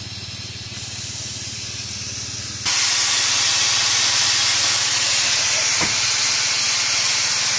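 Live-steam 7¼-inch gauge miniature locomotive hissing steam; about a third of the way in the hiss suddenly jumps much louder and then holds steady, as the safety valves on top of the boiler lift and blow off.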